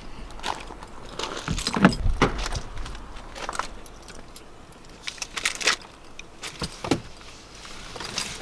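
Keys jangling amid scattered clicks, knocks and rustling as someone handles things at a car's open door.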